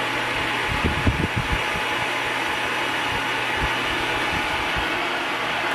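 Bladeless fan running, a steady rush of moving air with a faint low hum. A few low thumps come about a second in and a few more later on.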